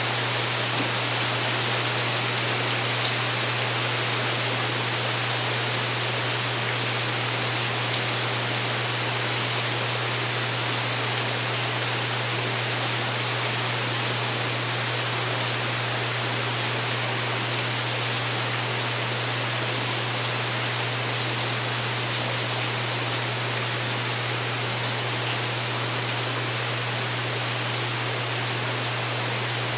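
Steady rain pattering on a porch roof, an even hiss with no changes, over a steady low hum.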